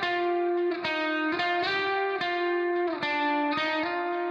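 Instrumental background music: a melody of sustained, ringing notes that change about every half second.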